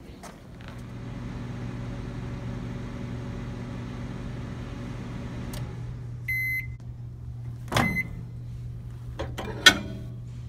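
Microwave oven running with a steady hum and a faint hiss, which cuts off with a click about halfway through, followed by a short end-of-cycle beep. Then there is a loud clack with a brief beep, and clinks as the glass bowl is taken out.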